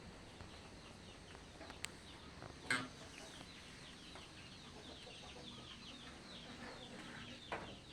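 Faint bird chirping: many short, falling chirps repeating throughout, with a sharp knock about a third of the way in and a few fainter clicks.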